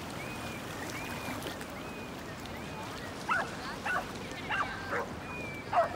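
A dog whining in short, high, evenly spaced whines, then giving several sharp yips from about three seconds in, over a steady wash of water.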